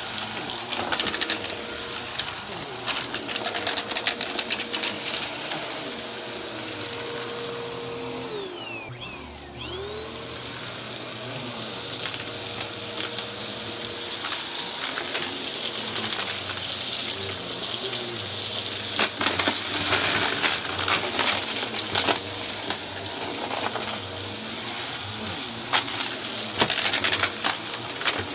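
Upright bagless vacuum cleaner running over carpet, its motor whine steady, with scattered crunching crackles as the brushroll picks up debris. Just before ten seconds in, the motor's pitch drops sharply and then winds straight back up.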